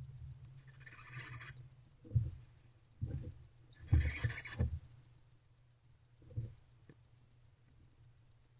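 Barn owls calling in a nest box: two hissing calls, each about a second long, the first about a second in and the second about four seconds in. Several dull thumps and scuffles come from the birds moving on the box floor.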